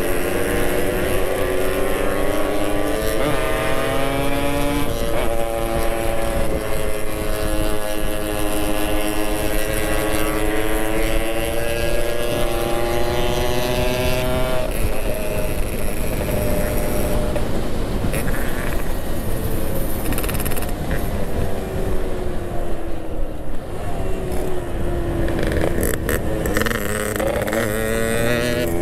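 Yamaha RX-King's two-stroke single-cylinder engine running on the move, its note rising and falling with the throttle, over a steady rush of wind. The engine note fades into the wind for a while past the middle and comes back near the end.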